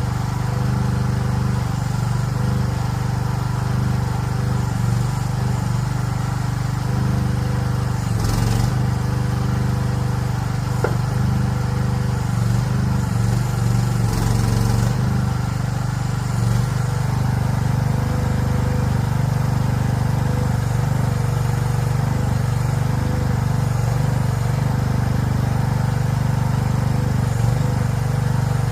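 Chinese mini excavator's engine running steadily while the machine works, its note shifting a little about halfway through, with two brief hissing bursts about 8 and 14 seconds in.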